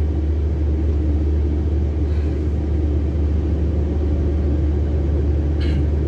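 Heavy diesel truck engine idling: a steady low rumble that holds even throughout.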